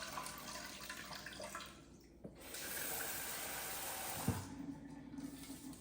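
Rice being rinsed at a kitchen sink: water swishing, then a steady stream from the faucet that stops with a light knock about four and a half seconds in.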